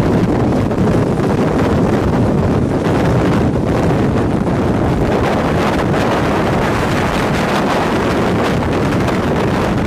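Steady, loud rush of strong wind on the microphone, mixed with the rumble of a vehicle driving on the highway near a tornado.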